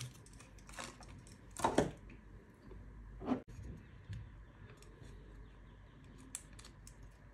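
Faint handling sounds of a microSD card and its adapter: scattered small plastic clicks and ticks, with two short louder noises about one and a half and three seconds in.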